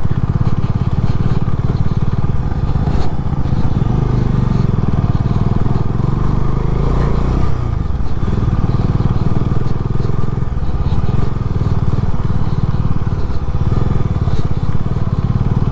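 Motorcycle engine running steadily as the bike rides over a rough unpaved stretch of road.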